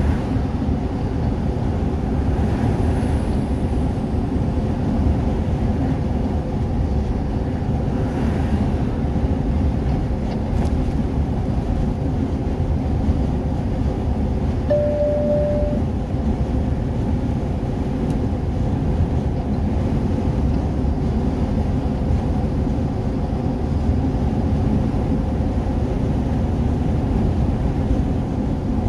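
Steady road and engine noise inside a vehicle's cabin while it drives at motorway speed, with a short beep about halfway through.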